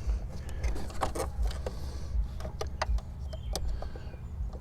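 Irregular metallic clicks and scrapes of a flathead screwdriver working the hose clamp on a car's air intake hose, over a low steady rumble.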